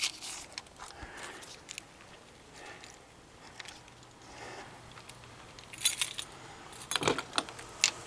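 A set of keys jangling in short bursts of metallic clicks and rattles, the loudest about six and seven seconds in.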